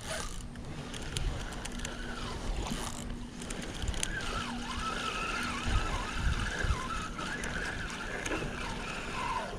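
Spinning reel being cranked steadily on a snagging retrieve, under a low rumble on the microphone. A wavering high whine comes in about four seconds in and fades out shortly before the end.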